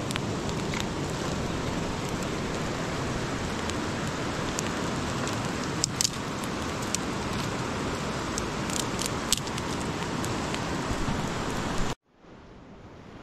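Fast river water rushing, a steady dense noise with a few sharp clicks near the middle. About twelve seconds in it cuts out abruptly, then comes back much quieter and slowly swells.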